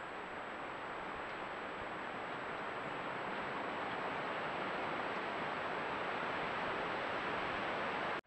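Steady hiss of wind through trees, heard through a trail camera's small microphone, slowly growing louder, with a thin high electronic whine from the camera. It cuts off suddenly near the end.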